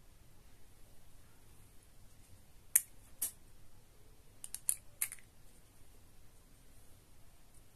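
Sharp clicks from the cap of a glass perfume bottle being pulled off and handled: two clicks about three seconds in, then a quick run of about four more a second and a half later.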